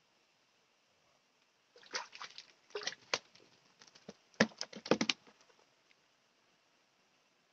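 Hooked catfish thrashing and splashing in shallow water as it is grabbed by hand, in two quick flurries of splashes about two and four seconds in.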